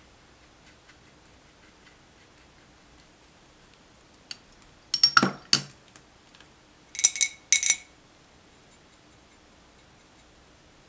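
Metal ferrule of a paintbrush clinking against a small glass water jar as the brush is rinsed: two short clusters of sharp clinks about two seconds apart, the second brighter with a brief ring.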